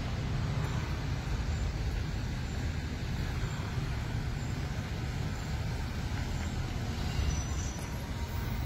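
Car driving slowly on a road: steady low engine and road rumble from the moving car.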